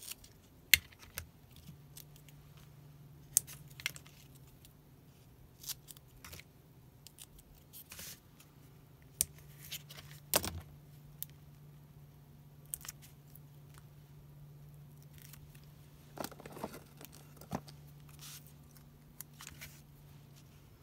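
Paper-crafting handling sounds at a desk: scattered light clicks and taps of small scissors and paper pieces being picked up and set down, with sharper clicks about a second in and about ten seconds in. A faint low hum comes in about two seconds in and runs beneath.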